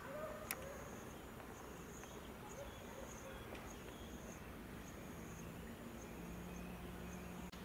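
An insect trilling faintly at a high pitch in repeated stretches of about half a second to a second with short gaps between them. A single sharp click about half a second in.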